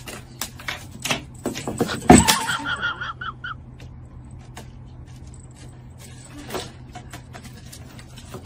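A cat's paws thumping and scrabbling on a wooden floor as it leaps and pounces at a feather toy on a string, the hardest landing about two seconds in, followed by a short run of high squeaks. Only scattered light taps after that, over a low steady hum.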